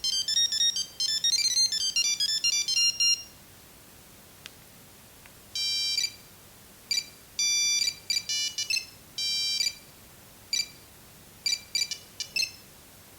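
Nokia 6310 mobile phone playing its monophonic ringtones through its small speaker: a fast run of high beeping notes ends about three seconds in. After a short pause with a faint click, the next ringtone starts, a pattern of short beeps and a few longer held notes that stops near the end.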